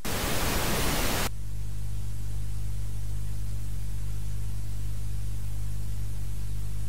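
A loud burst of TV static lasting about a second, then a steady low electrical hum with faint hiss behind it, as on a broadcast showing a technical-difficulties card.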